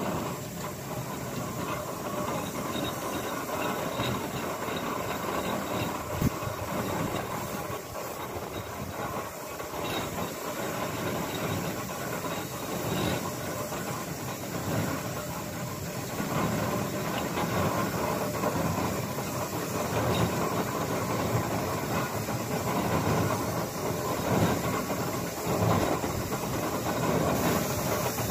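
Steam roller approaching along a road, its engine chuffing in a regular beat with a hiss of steam, growing louder as it nears.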